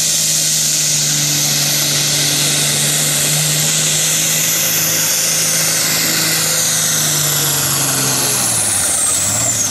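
Turbocharged diesel engine of a super farm pulling tractor running flat out under load, with a high turbo whine over it. Near the end, the engine note and the whine both fall in pitch as it comes off the throttle.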